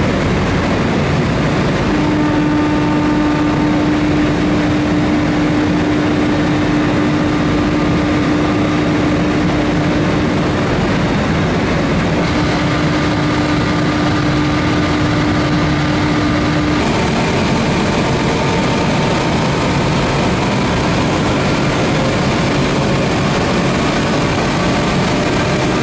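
Funicular drive machinery running: the DC drive motors and gearboxes turn the large drive pulley that carries the steel haul rope. It makes a loud steady mechanical drone with a steady whine that breaks off briefly near the middle. From about two-thirds of the way through, fainter whines rise slowly in pitch.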